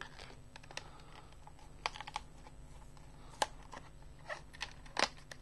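Fingers picking at the tape and opening a small cardboard card package: a scattering of light, irregular clicks and taps.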